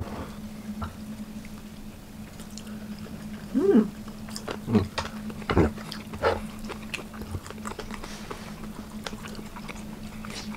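Table eating sounds: wooden chopsticks clicking against ceramic dishes while picking up spicy chicken feet, with chewing, over a low steady hum. One short pitched sound comes about four seconds in.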